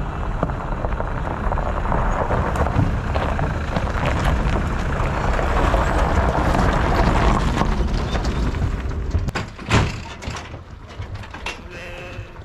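Pickup truck towing a twin-axle livestock trailer driving past on a gravel lane: engine rumble and tyres crunching on gravel, growing louder as it passes and then fading. About nine seconds in, a few sharp knocks.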